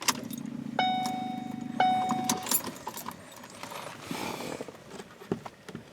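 A car's starter is cranked with the key for about two and a half seconds without the engine catching, a no-start. Over it the dashboard chime dings twice, followed by a few light clicks.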